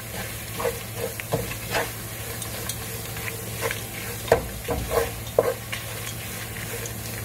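Wooden spatula stirring and scraping grated coconut, onion and carrot around a nonstick pan while they sauté, in irregular scrapes and light taps over a low steady hum. The sharpest knocks come a little past four and five seconds in.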